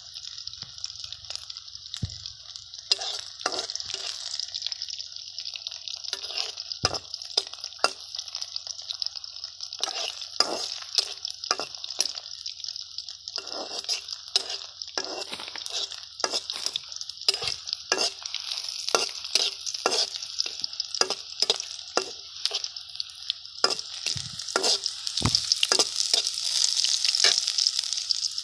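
Small fish frying in hot oil with a steady sizzle, while a utensil scrapes and knocks against the pan as they are stirred. The sizzle grows louder near the end.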